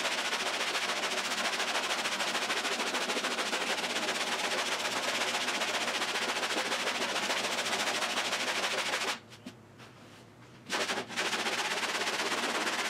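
Coarse 40-grit sandpaper rasping over cured body filler on a car door in long, steady scraping strokes. It stops for about a second and a half two-thirds of the way through, then starts again.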